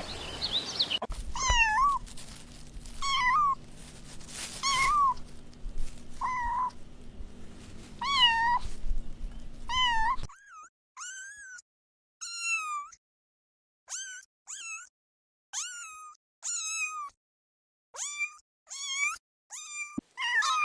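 Kittens meowing over and over, high-pitched mews that rise and fall, about one a second. About halfway through, a background hiss cuts out and the mews continue on a clean background.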